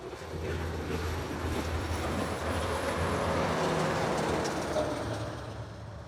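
Heavy trucks passing at highway speed: a steady low engine drone under tyre noise that builds to its loudest about four seconds in, as a semi-trailer goes by close, then fades.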